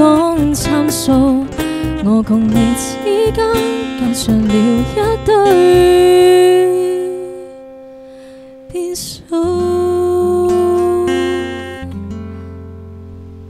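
A young woman sings the closing lines of a Cantonese pop song into a microphone over acoustic guitar, ending on a long held note. After a short gap a last chord rings out with a low bass note and slowly fades.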